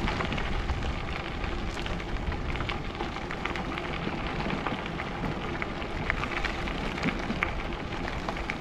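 Bike tyres rolling over a crushed-gravel trail, with a steady stream of small clicks and crackles from the stones, under a constant rush of wind over the camera microphone.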